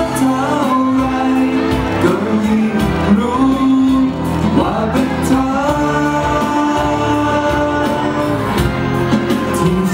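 A man singing live into a handheld microphone over backing music, the melody moving between long held notes.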